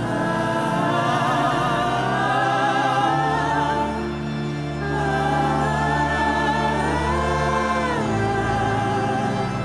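Gospel worship music: a choir sings sustained, wordless notes with vibrato over held keyboard chords, and the chord changes near the end.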